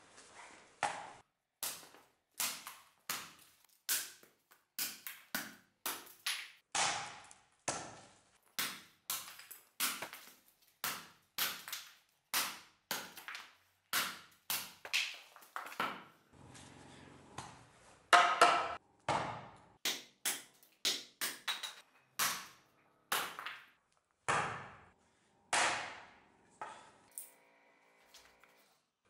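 Hand axe chopping a thin branch into pieces on a wooden chopping block: a long run of sharp chops, about two a second, with a brief pause and the loudest strikes about two-thirds of the way through.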